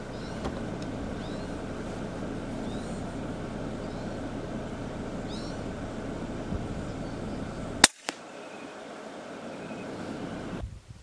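Vehicle driving slowly along a gravel dirt road, a steady low rumble with faint short bird chirps above it. About eight seconds in comes a sharp click, then a smaller one, and the rumble stops.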